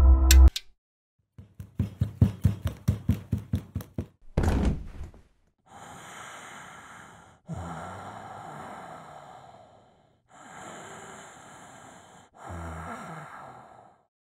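Rapid knocking, about a dozen quick knocks, ending in one heavier thud; then four long, heavy breaths, each a couple of seconds long with short pauses between.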